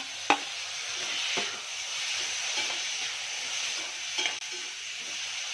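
Chopped tomato, onion and capsicum frying in oil in a steel kadhai, a steady sizzle, while a metal spatula stirs and scrapes the pan with a few sharp clinks against the steel.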